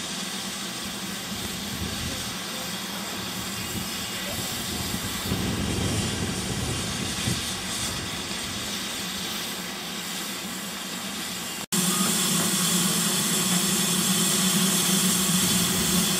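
GWR Hall class steam locomotive No. 5972 'Hogwarts Castle' in steam, with a steady hiss of escaping steam. After a sudden cut about two-thirds of the way through, the hiss is louder and closer, with a low steady hum beneath it.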